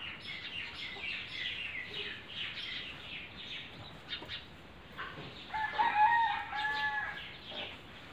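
Small birds chirping in quick repeated notes through the first half, then a rooster crowing once about five and a half seconds in, a held call of about a second and a half and the loudest sound.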